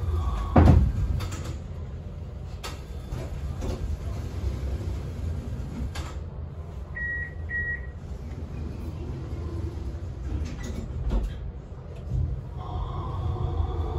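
Tram heard from inside the cab: a low rumble with scattered knocks and clunks, and the traction motors' whine fading at the start. Two short beeps sound about seven seconds in. The motor whine rises again near the end as the tram picks up speed.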